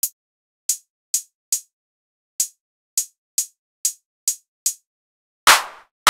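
A hi-hat sample from an FL Studio Mobile drum kit, sounding as single short, bright ticks at uneven spacing, about a dozen of them. About five and a half seconds in comes one louder, fuller percussion hit.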